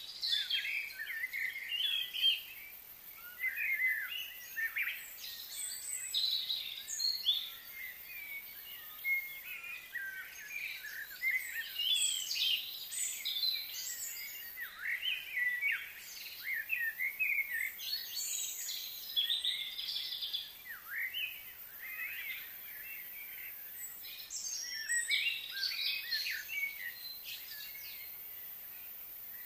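Birds chirping and singing, many short calls overlapping, with a few brief lulls late on.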